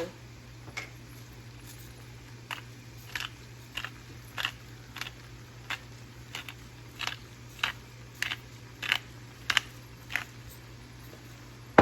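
Pepper grinder being twisted, cracking black peppercorns: a run of about fifteen short crunches, roughly one every 0.6 seconds, stopping about ten seconds in.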